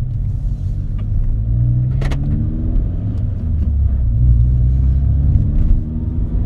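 2012 Mini Cooper S (R56) 1.6-litre turbocharged four-cylinder heard from inside the cabin, pulling away and accelerating. The engine note rises in stages, with a sharp click and a drop in pitch about two seconds in, then a longer rise that eases off near the end.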